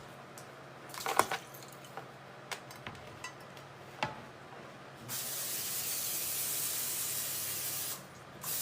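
Aerosol cooking spray hissing as a baking pan is greased: one steady spray of about three seconds, then a second short spray near the end, after a few light clicks and knocks of handling.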